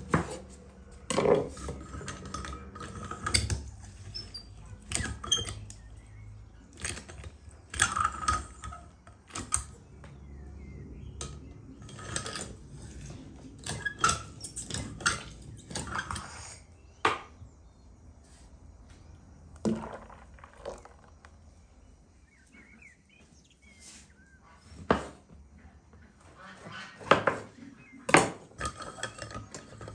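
Kitchen knife cutting mandarins and knocking on a wooden cutting board, with metal clinks and clatter from a stainless-steel lever-press citrus juicer as mandarin halves are loaded and pressed. The knocks come irregularly, a few seconds apart.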